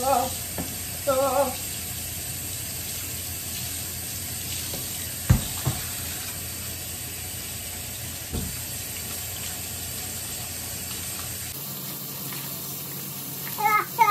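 Kitchen tap running steadily into the sink while raw fish is rinsed by hand in a plastic bowl under the stream, with a sharp knock about five seconds in and another a few seconds later. Short wavering high-pitched cries come near the start and again at the very end.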